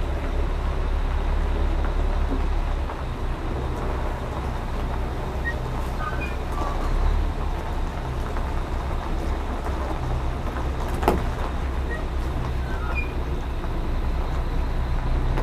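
Dump truck's diesel engine running with a deep steady rumble as the truck reverses slowly up a gravel driveway. A single sharp click sounds about eleven seconds in.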